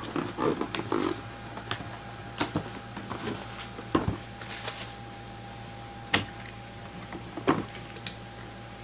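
Cardboard trading-card box being handled: a rustle of the box at first, then four sharp knocks as it is turned and set down on the table, over a faint steady tone.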